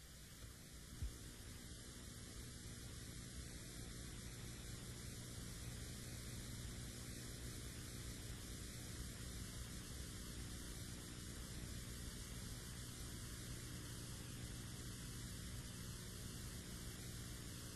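Faint steady hiss with a low hum under it, and one soft click about a second in.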